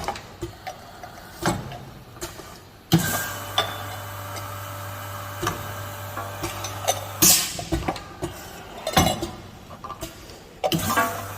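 Semi-automatic vacuum capping machine working: a steady low hum that cuts out near the start, returns about three seconds in, stops again about seven seconds in and comes back near the end. Short hissing bursts of air come about seven, nine and ten and a half seconds in, among glass jars and metal caps clinking and clicking.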